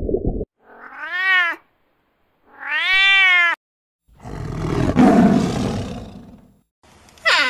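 Cat calls: two drawn-out meows, each about a second long and rising then falling in pitch, followed by a longer breathy, hissing growl and a short falling call near the end. Before them, a brief murky rumble cuts off about half a second in.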